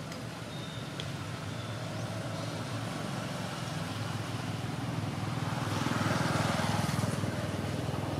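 Motor vehicle engine rumbling, growing louder to a peak about six to seven seconds in, as if passing close by.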